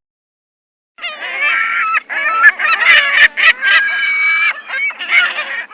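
A bird calling over and over in a quick run of short, pitched calls, starting about a second in and cutting off near the end, with a few sharp clicks mixed in.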